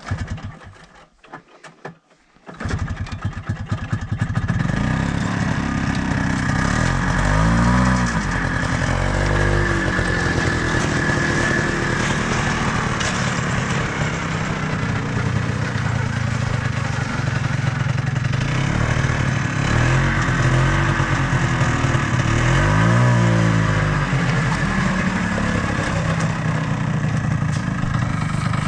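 Ski-Doo Tundra snowmobile engine starting after a few knocks, catching about two and a half seconds in, then running steadily with the throttle blipped up and down a few times.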